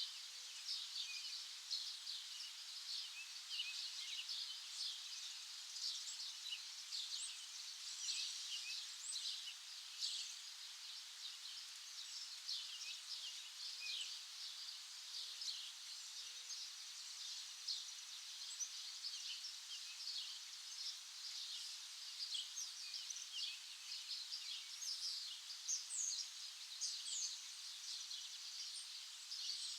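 A chorus of many small songbirds chirping, with dense overlapping short high chirps and trills that never let up.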